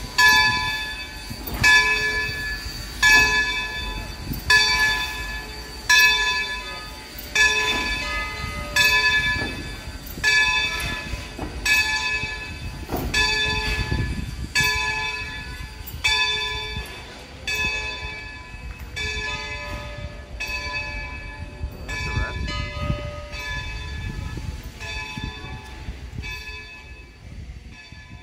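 Baldwin 0-6-0 steam locomotive #26's bell ringing steadily, about one stroke every second and a half, each stroke ringing on. The strokes grow fainter through the second half as the engine moves away, over a low rumble.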